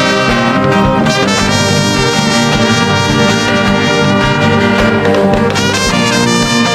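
Music with brass: trumpets and trombones holding chords over a steady beat.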